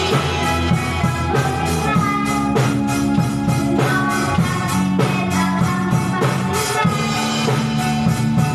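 A small live band playing a pop song: drum kit keeping a steady beat under a synthesizer keyboard and acoustic guitar, with a girl singing into a microphone.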